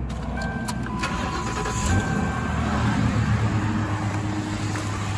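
A Ford Panther-body car's 4.6-litre V8 starts after a few short beeps: it cranks, catches about two seconds in, and settles into a steady idle.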